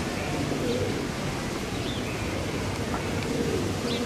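Feral pigeons cooing, twice, with a few short high chirps from small birds over a steady open-air street hum.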